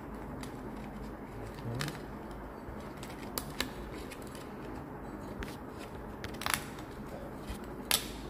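Old, broken foam rubber surround being torn and peeled away from the cone edge of a Wharfedale Diamond 9.1 woofer by hand: a few short, sharp crackles and clicks, the loudest near the end, over steady background noise.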